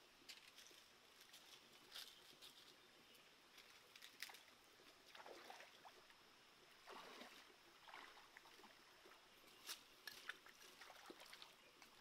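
Faint, irregular splashes and sloshes of someone wading through shallow stream water, over a soft steady hiss of the stream.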